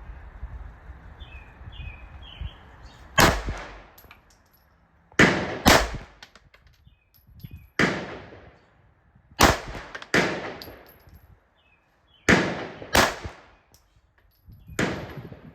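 Nine handgun shots fired at a slow, uneven pace, some singly and some in pairs about half a second to a second apart, each with a short echoing tail.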